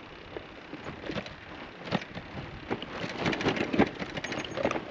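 Loaded touring bicycles rolling over a rough dirt trail: tyres crunching on grit and stones, with irregular clicks and rattles from the bikes and their bags, growing busier about three seconds in.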